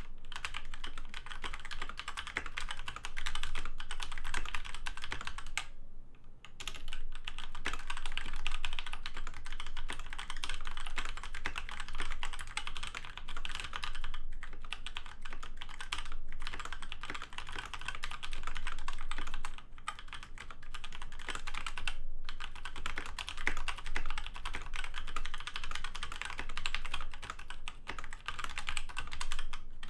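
Continuous fast typing on a DMK02 budget mechanical keyboard with off-brand red switches: a dense patter of keystrokes with a few brief pauses.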